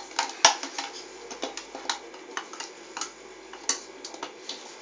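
Spoon clinking and knocking against a stainless steel saucepan and the eggs in it while the eggs are stirred in water: irregular clinks, the loudest about half a second in.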